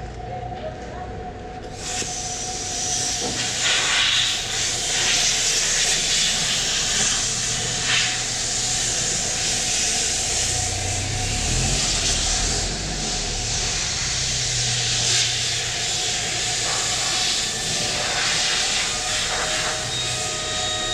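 A loud, steady hiss that starts abruptly about two seconds in and keeps on, over a low hum.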